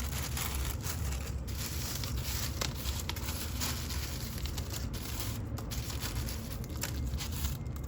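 Faint rustling and light handling noise with a few soft clicks, over a steady low hum.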